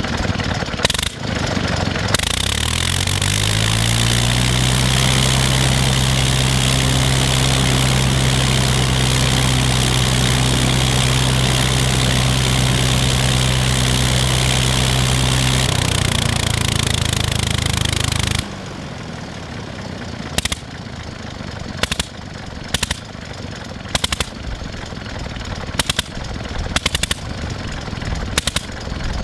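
Seven-cylinder Gnome rotary aero engine turning a propeller on a test stand. It runs roughly for a couple of seconds, then speeds up to a steady, loud high-speed run. About 18 seconds in it drops suddenly to low speed, firing with irregular sharp pops.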